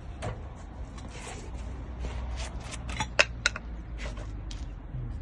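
Light metallic clicks and taps from brake pads and caliper hardware being handled, with two sharper clicks a little past halfway, over a steady low hum.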